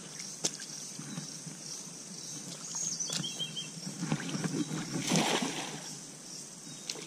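Rubber-booted footsteps sloshing through shallow water, then a cast net thrown out and landing on the water's surface with a brief spreading splash about five seconds in.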